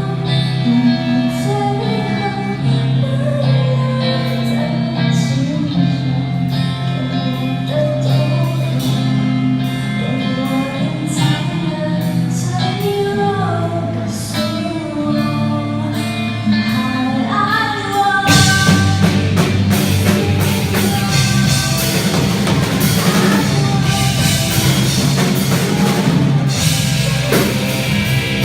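A student rock band playing live: singing over sustained instrument chords, then the full band with drums comes in about 18 seconds in, louder and denser.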